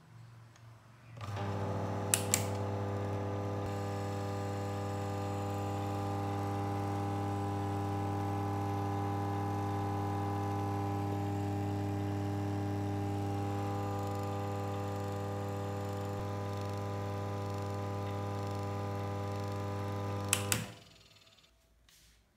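A 230 V washing machine motor with a run capacitor, running on mains power with a steady low hum. The hum starts about a second in and cuts off near the end, with a couple of sharp clicks shortly after it starts and again just before it stops.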